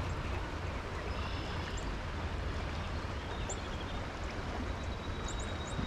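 Steady rush of a shallow riffled stream flowing, heard up close at water level.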